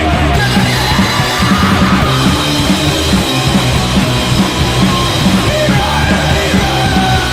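A punk rock band playing loudly in a rough rehearsal recording: driving drums with distorted guitar and bass.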